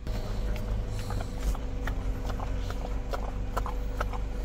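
A husky licking dog ice cream from a small tub held in a hand: quick, irregular wet lapping clicks, several a second, over a steady low hum.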